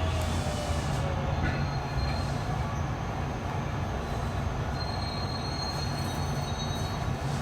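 JR West 207 series commuter train heard from inside the car while slowing: a steady rumble of wheels and running gear, with a faint falling motor-inverter tone near the start and a thin high squeal in the middle.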